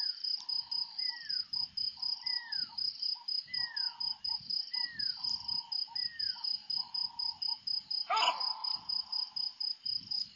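Bushbuck giving one loud alarm bark about eight seconds in, over steady pulsing cricket chirps. Before the bark, a falling whistled note followed by a short lower note repeats about every second and a quarter.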